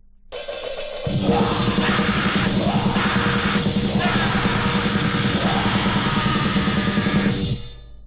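Grindcore played by a full band: distorted guitar comes in, and about a second in the drums and bass join with shouted vocals in a fast, dense wall of noise that cuts off abruptly near the end.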